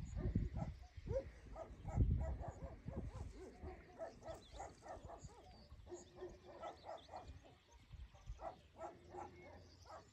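Dogs barking over and over, a few barks a second, fairly faint. A low rumble is loudest near the start and again about two seconds in.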